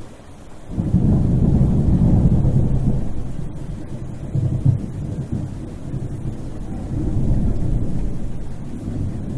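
A thunderclap breaks under a second in and rolls on as a long low rumble, swelling again midway and near the end, with a hiss of rain beneath.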